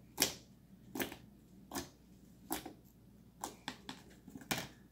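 Sticky homemade slime being scraped off the sides of a bowl and worked: a string of short clicks and scrapes about once a second, bunching into several quick ones near the end.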